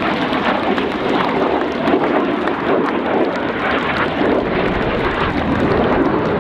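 BAE Hawk T1 jet's Adour turbofan engine flying past: a loud, steady rush of jet noise with a crackling edge.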